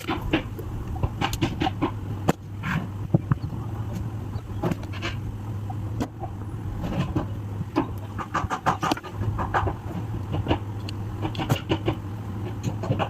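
Irregular sharp clicks and clinks, some in quick clusters, as of tools and parts being handled during a mixer grinder motor repair, over a steady low hum.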